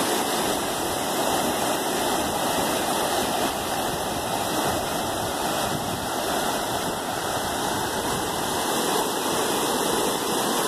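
A creek in flood, running high over its banks with a steady rush of fast water.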